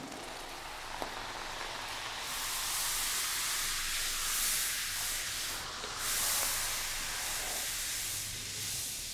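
Red-hot, clay-coated katana blade hissing in a water trough as it is quenched to harden it, the water boiling off as steam. The hiss swells about two seconds in, dips briefly just before six seconds, rises again and fades near the end.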